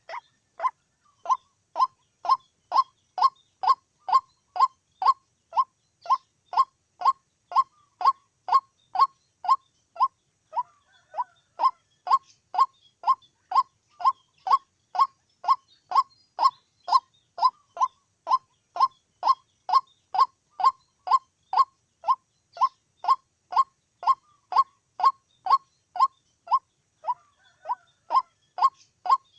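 White-breasted waterhen calling: a monotonous run of single short 'kwok' notes, about two a second, each dropping slightly in pitch.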